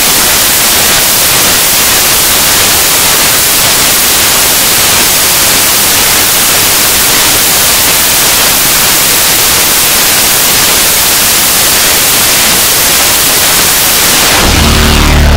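Loud, steady static hiss, even and without any tone or rhythm. About a second before the end, heavy metal music begins.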